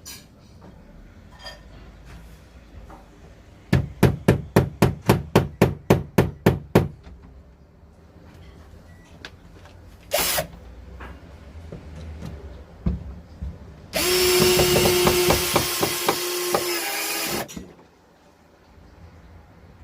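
About a dozen quick hammer taps, roughly four a second, driving a screw into the door to start its hole. After a brief burst of sound, a power drill with a Phillips bit runs steadily for about three and a half seconds driving the screw in, then stops suddenly.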